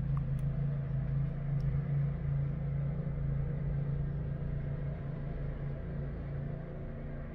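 Steady low mechanical hum with several held tones, like a motor running, easing off slightly toward the end, with a couple of faint clicks near the start.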